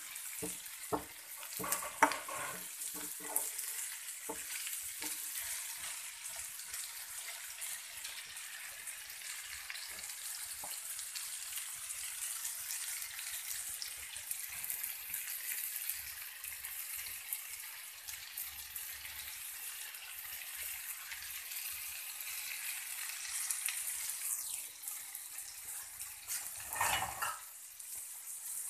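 Sliced okra sizzling as it stir-fries in a frying pan. A wooden spatula knocks and scrapes against the pan several times in the first few seconds, and there is a short louder clatter near the end.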